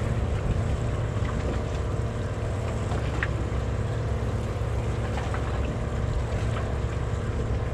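Fishing boat's engine running with a steady low drone, wind buffeting the microphone, and a single light click a little after three seconds in.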